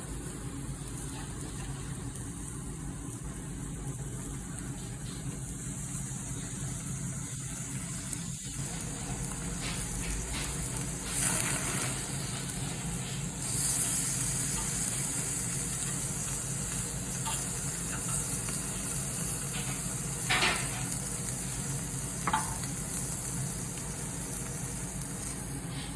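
Steady car cabin noise: a low rumble under a high hiss, broken by a few short knocks or clicks, the loudest a little past the middle.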